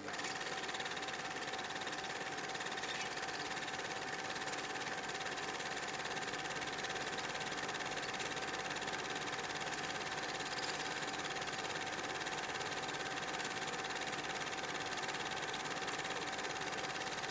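Black & Decker electric plunge router running steadily, its bit cutting a shallow recess into an MDF pattern along a guide template, a steady whine over the motor's noise.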